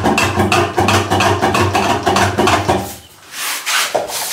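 Rhythmic scraping or rubbing strokes, about four a second, that stop about three seconds in, followed by a short rustle.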